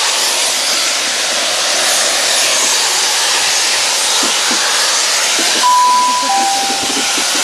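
Passing steam locomotive with a steady loud hiss and rush of steam and exhaust. Near the end come two short steady whistle notes, the second lower.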